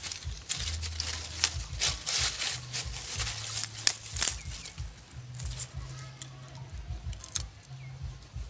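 Dry leaf litter and twigs crackling and rustling in irregular bursts as a young macaque moves and handles a stick on the forest floor, the crackles thickest in the first half, over a low rumble.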